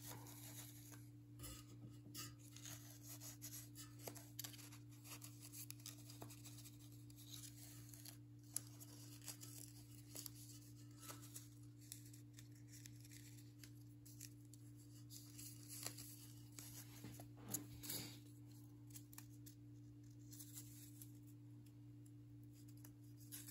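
Faint rustling and small snips of thin paper shim strips being cut and handled, over a steady low hum.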